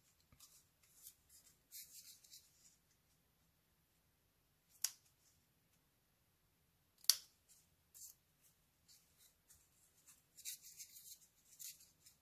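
Small orange-handled scissors trimming thin grey cardboard: two sharp snips about five and seven seconds in, with fainter small cuts and rustles of the cardboard piece before and after.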